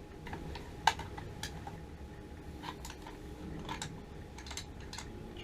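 Irregular small clicks and clinks of tools and metal parts being handled while a water heater gas control valve is worked on, with one sharper knock about a second in.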